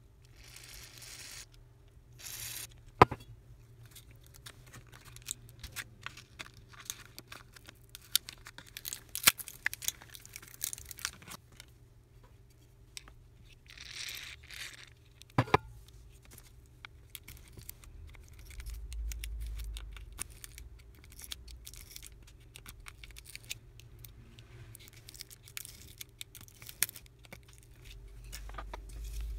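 Small clicks, taps and scrapes of hands and tools working on the opened OnePlus 3T smartphone's frame and parts, with a few short tearing sounds, like adhesive being pulled apart, a second in and again about a quarter of a minute in.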